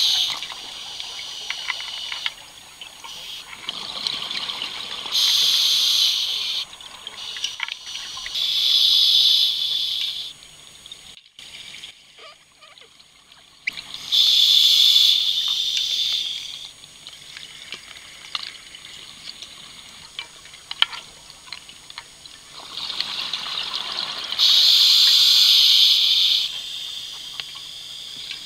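Scuba regulator breathing heard underwater: exhaled air bubbles gushing out in bursts of one to three seconds, a few seconds apart, with quieter breathing noise in between.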